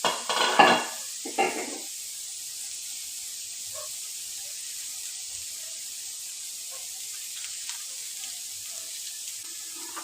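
Food cooking in a pot with a steady sizzling hiss, broken near the start by two short, loud bursts of noise.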